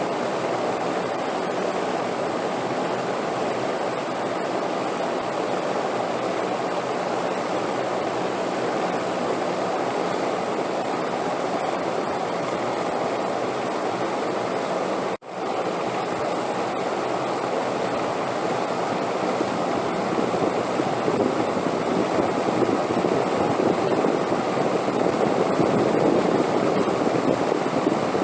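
Steady rushing wind, swelling louder over the last several seconds, broken by a momentary dropout just past halfway.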